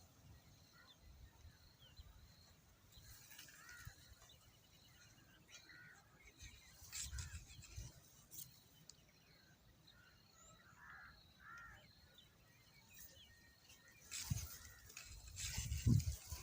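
Faint, scattered bird chirps and calls in the open air, with a few louder bumps near the end.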